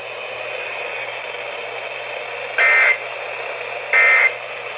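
Steady radio hiss, then about 2.5 seconds in two short bursts of warbling SAME data tones, about 1.3 s apart: the end-of-message code that closes an Emergency Alert System weather warning.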